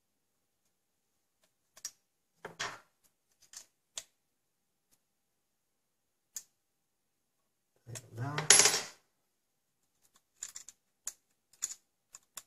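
Scattered small metallic clicks and taps of screws and an Allen wrench being worked at a shotgun's receiver, fitting the mounting plate of a side saddle shell holder. About eight and a half seconds in there is a louder handling noise lasting about a second.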